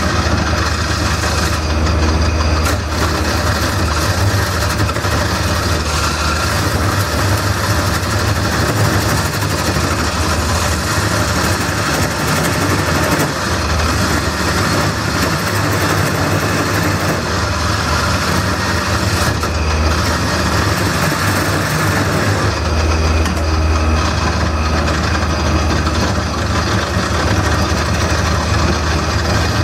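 Wood lathe running with a turning tool cutting the inside of a spinning wooden bowl: a steady motor hum under a scraping hiss from the cut. The cutting hiss eases off about three quarters of the way through while the lathe keeps running.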